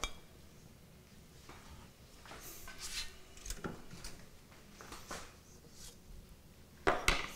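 Quiet handling noise of pancakes being slid off a spatula onto a ceramic plate and pushed into place: scattered soft clicks and scrapes, with two sharper clicks near the end.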